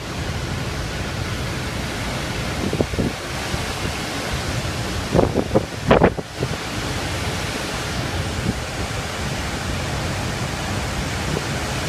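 Typhoon-force wind blowing steadily, with gusts buffeting the microphone a few times: a short pair about three seconds in and a heavier cluster around five to six seconds in.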